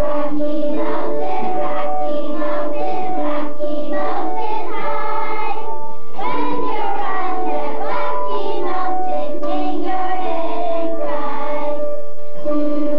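Children's choir singing, accompanied on an electronic keyboard with steady held notes.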